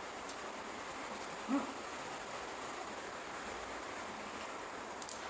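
Steady hiss of heavy rain, with a short low pitched sound about a second and a half in and a light sharp click near the end.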